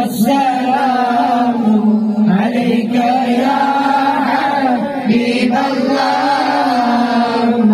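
A male voice chanting Arabic mawlid verses, a devotional song in praise of the Prophet, into a handheld microphone. The melody winds up and down over a steadily held low note, without a break.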